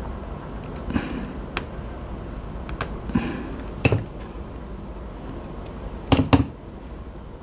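Scattered sharp clicks and taps from tools working on a computer mouse's circuit board while one of its click microswitches is being removed, over a steady low hum. The loudest come as a quick pair about six seconds in.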